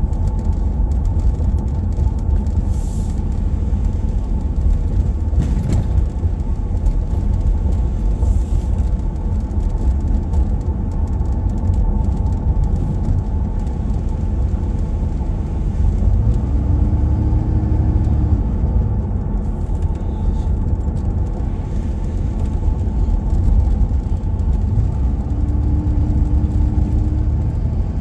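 Steady low rumble of a car's engine and tyres on the road, heard from inside the moving vehicle. A faint steady hum rises above it twice, each time for a couple of seconds.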